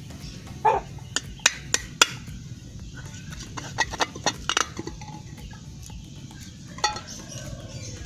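A nail being pressed and worked through the thin tin lid of an empty milk can, giving a string of sharp metallic clicks and taps, thickest in the first two seconds and again around four seconds in. A farmyard fowl gives a short call about half a second in.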